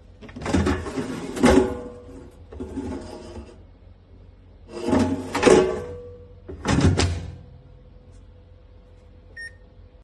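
COSORI Turboblaze air fryer's basket drawer being slid out and pushed back in, in four bursts of scraping and clattering over the steady hum of the running fryer. A short beep comes near the end.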